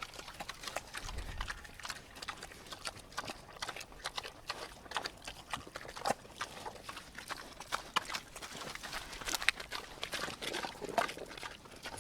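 Pigs eating and slurping mud: irregular wet smacking and chewing clicks.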